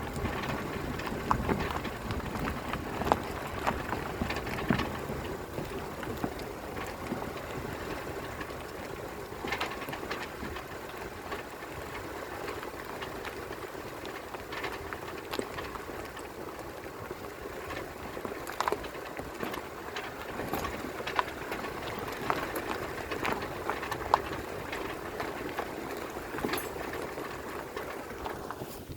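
Geely Coolray on the move with steady road noise, broken by irregular short knocks from the front suspension, a sign of a fault somewhere in the front suspension.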